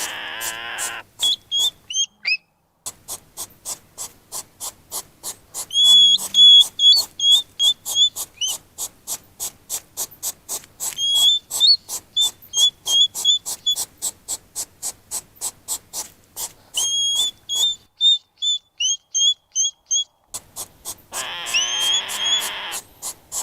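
Hedgehog sounds: a fast, regular run of short sharp snuffles, about four a second, broken by several series of short, high whistled squeaks.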